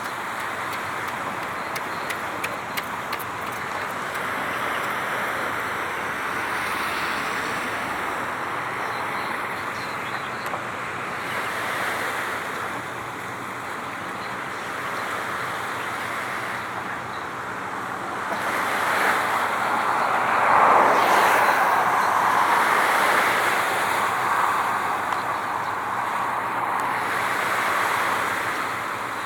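Steady rushing noise of wind and water, swelling louder for several seconds past the middle, with no clear engine note.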